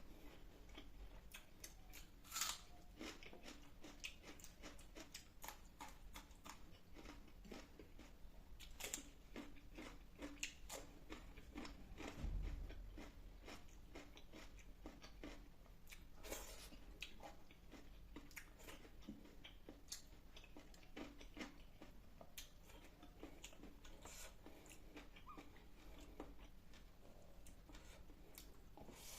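Faint eating sounds: chewing and wet mouth clicks with occasional crunches, from a meal of fish curry, rice and salad. A dull low thump comes about twelve seconds in.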